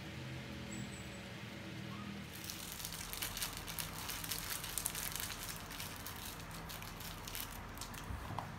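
Crinkly plastic snack wrapper crackling as it is handled in the fingers, starting about two seconds in and going on until near the end.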